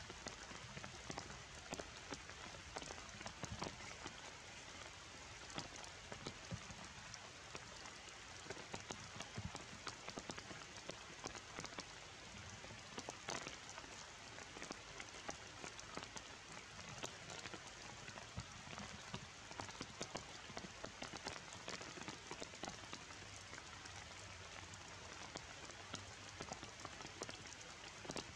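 Rain falling steadily on wet forest foliage, with many separate drops ticking close by.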